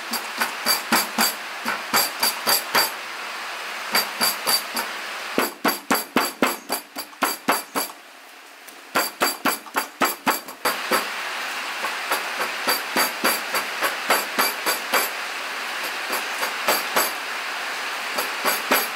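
Cleaver chopping raw meat on a wooden cutting board: quick runs of sharp knocks, several a second, in bursts with short pauses, over a steady hiss.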